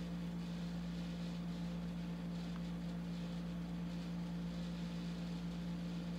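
A steady low hum with a faint hiss, unchanging throughout: the room's background noise.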